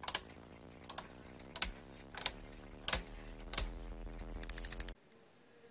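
Logo-intro sound effect: single clicks like keyboard keystrokes every half-second or so over a steady low tone, ending in a quick run of about six clicks. It cuts off suddenly about five seconds in.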